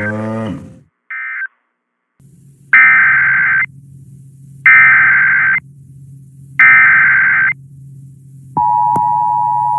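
Emergency Alert System SAME data bursts: two short end-of-message bursts in the first second and a half, then three longer header bursts of about a second each over a low hum. Near the end the steady attention tone starts, signalling a new warning.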